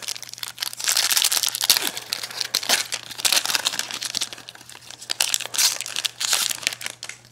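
Foil trading-card pack wrapper crinkling and crackling as it is torn open and crumpled, in irregular bursts for several seconds.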